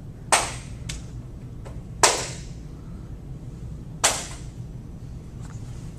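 Three sharp cracks, about two seconds apart, each with a short fading tail, over a low steady hum.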